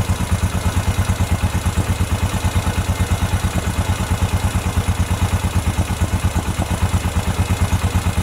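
A 2007 Honda ATV's single-cylinder engine, rebuilt with a new piston and cylinder, idling with an even pulse of about eight beats a second. To the mechanic it sounds like the carburetor is flooding.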